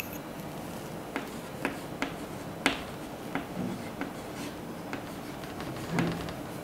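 Chalk tapping and scraping on a chalkboard as words are written: a run of short, sharp, irregular taps, the loudest a little under three seconds in.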